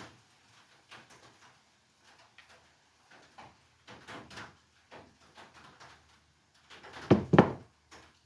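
Scattered clicks and light knocks of tools and chainsaw parts being handled, with two louder knocks about seven seconds in.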